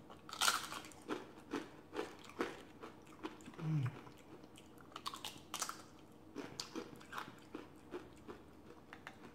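Crisp tortilla chips crunching as they are bitten and chewed close to the microphone. There is a loud first bite about half a second in, followed by a run of sharp crunches that thin out and then come thick again in the second half.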